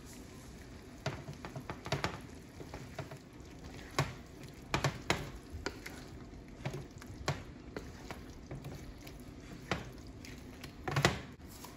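Wooden spatula stirring and scraping chicken pieces through sauce in a nonstick frying pan, irregular taps and scrapes over a low sizzle of the simmering sauce, with a louder run of scrapes near the end.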